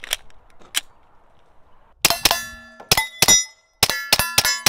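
A magazine is seated in a suppressed Shadow Systems XR920 9mm pistol and the slide is dropped, two sharp clicks. From about two seconds in comes a rapid string of about eight suppressed shots, each followed by a metallic ringing. The pistol is cycling reliably on a 20-pound recoil spring, closing the breech fine.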